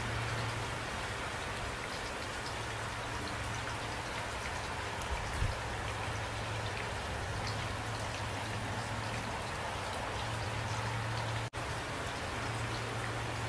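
Steady rain falling, an even hiss with scattered drip ticks, over a steady low drone. The sound drops out for an instant about eleven and a half seconds in.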